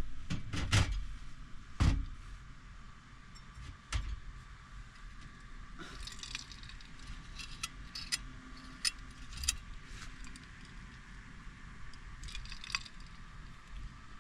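Irregular knocks in the first few seconds, then scattered light clicks and rattles, like small hard objects being handled.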